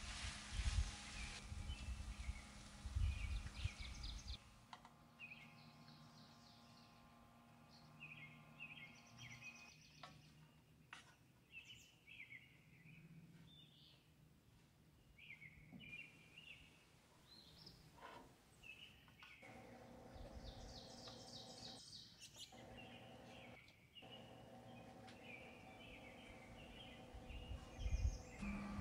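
Ground beef and onion sizzling in a frying pan, stirred and knocked with a wooden spoon, for the first four or five seconds. Small birds chirp faintly throughout.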